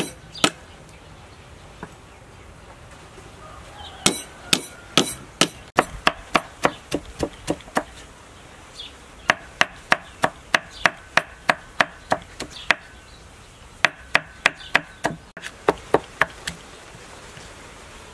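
Cleaver chopping garlic on a thick round wooden chopping block: runs of sharp knocks, about three a second, with short pauses between the runs.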